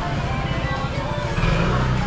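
Music playing, over the low running of a motor scooter engine.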